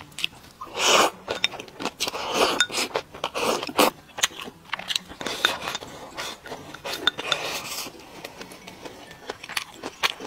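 Close-miked eating of spicy boiled meat slices and rice with chopsticks from a porcelain bowl: noisy slurps and mouthfuls about a second in, around two to four seconds in and again near seven seconds, with chewing clicks and chopsticks clinking on the bowl in between.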